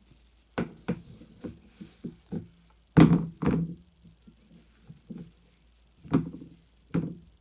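Irregular knocks and thunks of a Microfleur microwave flower press being opened and its parts handled and set down, about ten knocks with the loudest about three seconds in.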